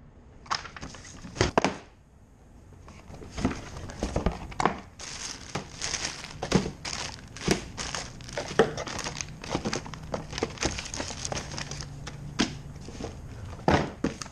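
Plastic packaging crinkling and rustling in irregular bursts as gauge parts are unwrapped and lifted out of a cardboard box, with a few knocks of handling in the first couple of seconds.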